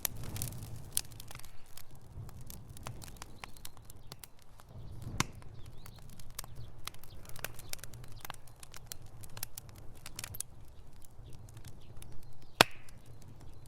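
Wood fire burning in a fireplace: irregular crackles and sharp pops over a low, steady rumble of flame. A strong pop comes about five seconds in, and the loudest pop near the end.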